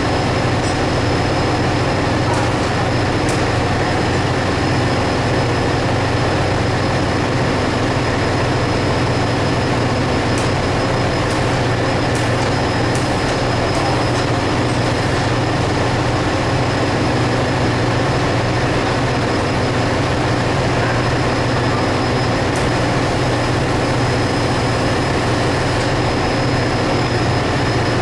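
Loud, steady drone of ship engine-room machinery: a constant low hum with a thin high whine over it, and a few faint metallic ticks from hand tools in the middle.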